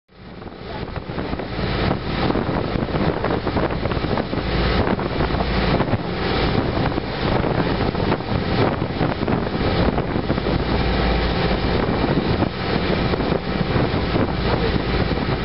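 Wind buffeting the camera's microphone aboard a fishing boat on open water, with a steady low rumble underneath. The sound fades in over the first couple of seconds.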